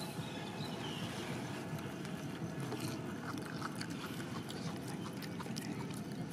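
Steady outdoor background noise, a low even rumble and hiss, with a faint steady hum and a few soft clicks.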